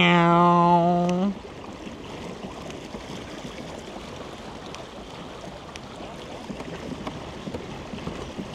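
A man's long, drawn-out 'meow' call that ends about a second in, then a steady wash of water along the hull of a pedal fishing kayak under way, with a few faint ticks.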